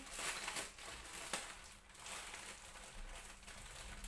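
Soft rustling and crinkling with a few light knocks, from a child handling plastic toy cradle parts.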